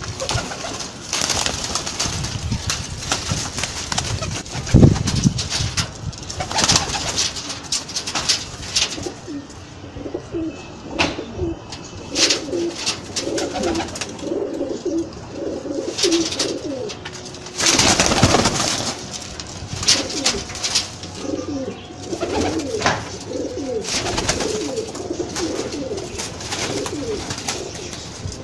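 Domestic pigeons cooing, in two long runs of repeated coos in the middle and latter part. Scattered knocks and a louder rush of noise come about two-thirds of the way through.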